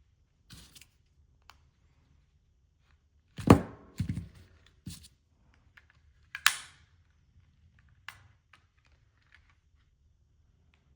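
Sharp plastic clicks and snaps from an LG Magic Remote's casing being pried apart with a plastic pick, a handful of them, loudest about three and a half seconds in.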